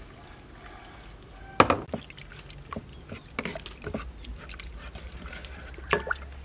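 Fish paste and hot water being stirred with a plastic spatula in a metal pot, the spatula knocking against the pot several times, most sharply about one and a half seconds in.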